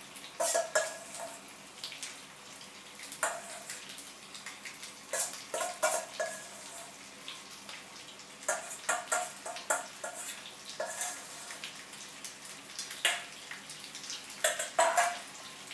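A metal spoon scraping and clinking against a steel bowl in irregular clusters as the leftover garlic mixture is spooned onto skewers on a hot grill pan. Under it, a faint steady sizzle.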